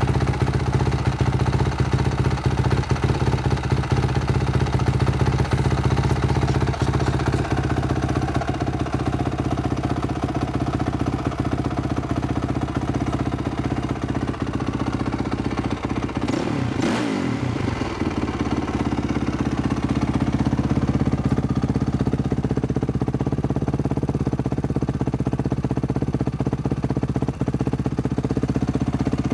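2006 Honda CRF450R's single-cylinder four-stroke engine running at a steady idle, with a brief waver in pitch about sixteen seconds in.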